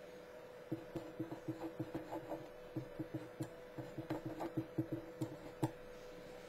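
Felt-tip marker writing on paper: a quick run of short squeaks and taps from the pen strokes, about five a second, starting about a second in and stopping near the end, over a faint steady hum.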